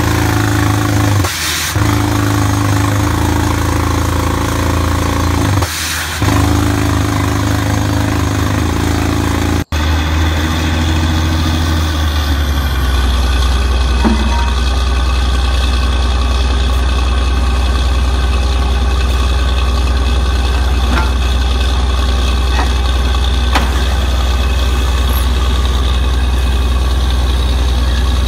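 Diesel engine of a truck-mounted borewell drilling rig running steadily with a deep hum. There is a brief dropout about ten seconds in, after which the low hum is stronger and steadier.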